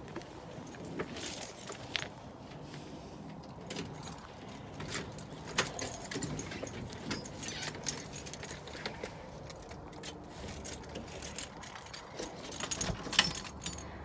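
Footsteps on steps and the rustle of carried blankets and bags, with scattered small clicks and clinks, some of them like jangling keys. The clicks and knocks get louder and closer together near the end, as they pass through the door.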